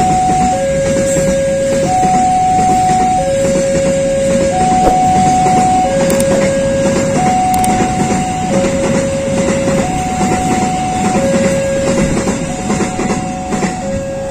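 Railway level-crossing warning alarm sounding a slow two-tone chime, low then high in turn, over the rumble and clatter of passenger coaches rolling past on the rails.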